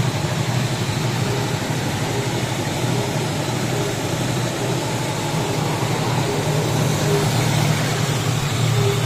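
Roll-to-roll paper lamination and slitting machine running steadily: a constant low motor hum with the rushing of rollers and the paper and foil web feeding through.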